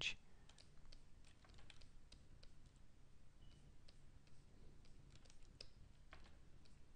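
Faint, irregular clicks and taps of computer input devices used for digital sculpting, over a low steady room hum.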